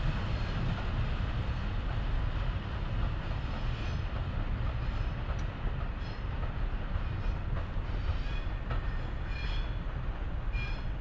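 Steady low rumble of a train running on the rails out of view, with several short, high squeals from about four seconds in.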